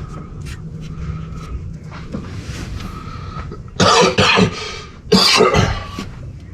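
A person coughing: two loud bouts of coughing, one about four seconds in and another about a second later.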